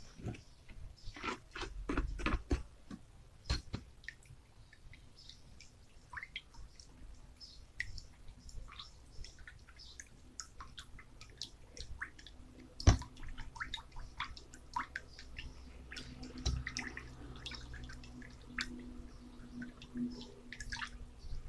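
Clear plastic spoon stirring a watery mixture in a plastic tub: a steady run of small clicks and scrapes against the tub with light liquid splashing, and a sharper knock about 13 seconds in.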